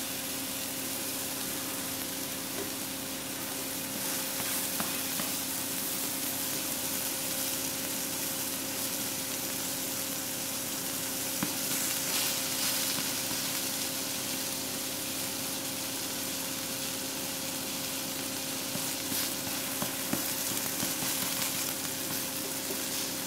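Uttapam frying in oil in a non-stick pan, a steady sizzle, with a spatula now and then scraping under it. A steady low hum runs underneath.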